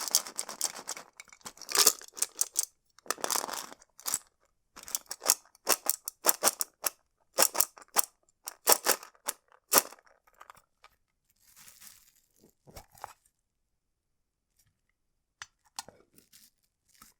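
Tapping and clicking on a metal sweets tin: quick runs of sharp, bright clicks with short scratchy stretches, thinning to a few soft taps after about ten seconds.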